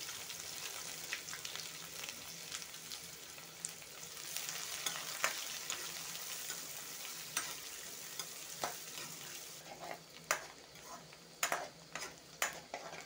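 Chopped onions sizzling in hot oil in a kadai while a spatula stirs them, scraping and clicking against the pan. The frying hiss eases after about ten seconds, leaving the spatula's knocks more distinct.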